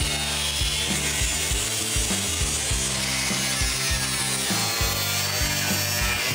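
Angle grinder with a cutoff wheel cutting through the steel floor of a Jeep body, a steady high grinding hiss. Under it runs a music track with a steady beat.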